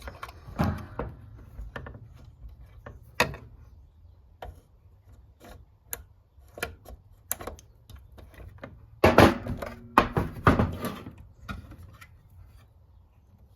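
Scattered small clicks and handling noise as plastic retainer clips are fitted onto clear tubing with needle-nose pliers, with a louder cluster of clattering about nine seconds in.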